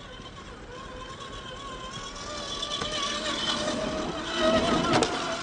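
RC crawler's Reedy 550 16-turn brushed electric motor and gear drive whining as the truck crawls over rock, growing louder toward the end, with a sharp click about five seconds in.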